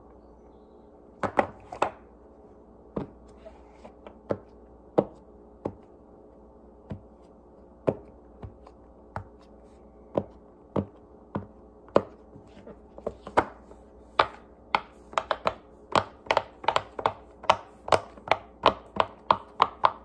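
Silicone pop-it fidget toy having its bubbles pressed in one by one with the fingertips, each giving a sharp pop. The pops come singly and scattered at first, then quickly, several a second, in the second half.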